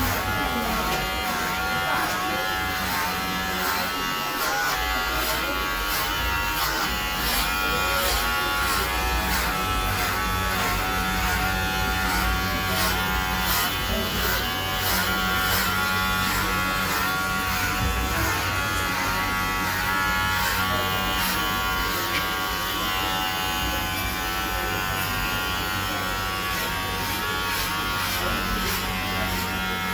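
Electric hair clippers running with a steady buzz, shaving hair off a head for a buzz cut.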